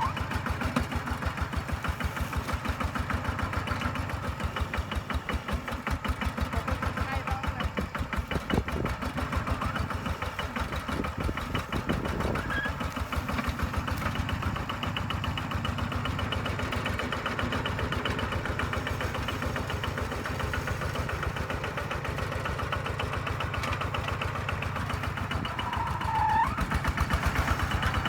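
Kubota two-wheel tractor's single-cylinder diesel engine running steadily, with a rapid, even firing thump, while the tractor works as a small dozer in mud.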